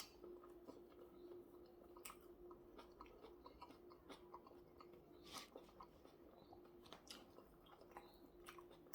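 Faint chewing of a hamburger and salad: soft crunches and scattered mouth clicks over a faint steady hum.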